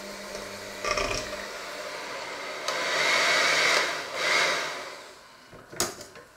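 Electric hand mixer running, its beaters churning a thick mixture in a stainless steel bowl. It grows louder about three seconds in, then dies away near the end, followed by a couple of sharp clicks.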